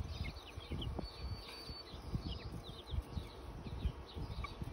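Many short, high chirps from birds, each sliding downward, one held as a longer whistle about a second in. Low rumbling on the microphone runs underneath.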